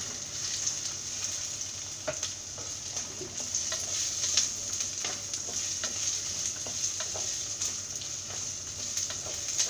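Chopped onion, ginger and garlic sizzling in hot oil in a clay pot, stirred with a wooden spatula that makes frequent small scrapes and taps against the pot.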